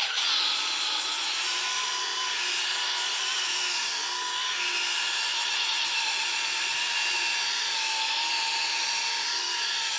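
Cordless drill running steadily, spinning a foam polishing pad with cutting compound against a car's painted bumper, a constant motor whine over a hiss of the pad on the paint. The drill cuts off suddenly at the very end.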